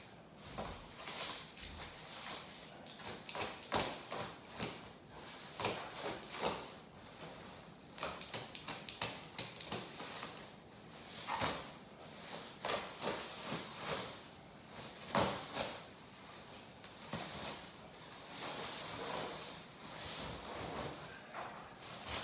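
Cardboard, tape and plastic bubble wrap being cut and pulled off a packed car seat: irregular rustling, crinkling and tearing with scattered knocks.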